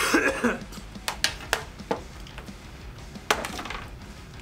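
Forks and hands clinking and scraping on aluminium sheet pans and plates during a meal: a short noisy clatter at the start, then a handful of separate sharp clicks.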